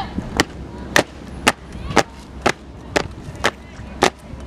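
Evenly spaced sharp drum strikes, about two a second, beating the marching step.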